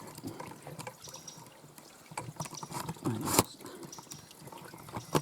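Irregular drips and light taps, like rain dripping through woodland leaves. About three seconds in there is a brief low murmur, ending in a sharp knock.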